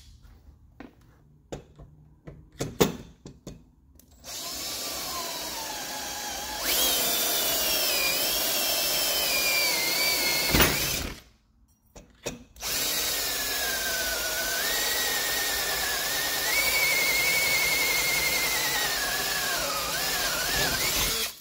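Power drill boring through aluminium brackets into an aluminium seat back brace, the brackets' holes guiding the bit: after a few handling clicks the drill runs for about seven seconds, stops briefly, and runs again for about nine seconds on the second hole, its whine wavering in pitch.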